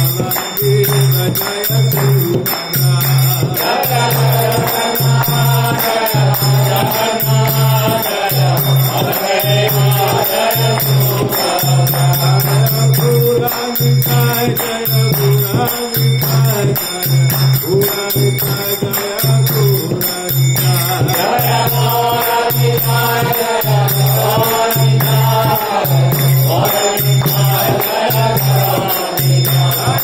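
Devotional mantra chanting sung to music, a wavering sung melody over a steady pulsing beat, with jingling hand cymbals keeping the rhythm.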